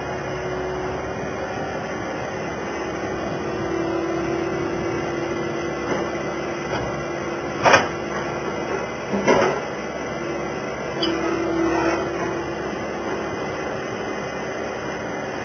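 A steady mechanical hum with a tone that comes and goes, broken by a few sharp knocks about halfway through.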